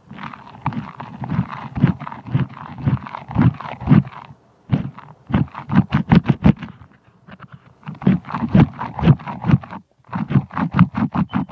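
White slime being squished, pressed and mixed, giving rapid irregular wet clicks and pops, with two brief pauses.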